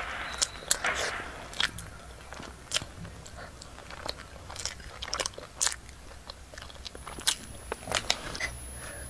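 Close-miked chewing of a pork-floss-coated pastry: soft crunches and sharp mouth clicks at irregular intervals.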